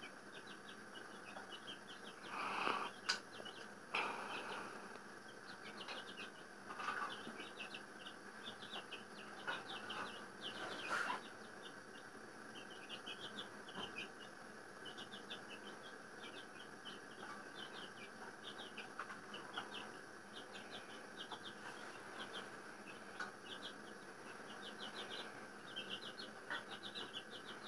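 Baby chicks peeping constantly, a rapid stream of short high cheeps, with a few louder brief noises in the first half.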